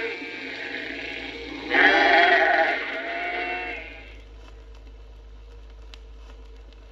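Sheep and lambs bleating, several calls overlapping, the loudest about two seconds in. The calls die away after about four seconds, leaving only a faint steady hum.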